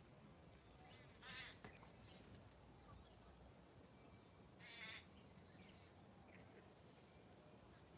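Faint bird chirps and short whistles, with two louder, harsh quavering animal calls about three seconds apart.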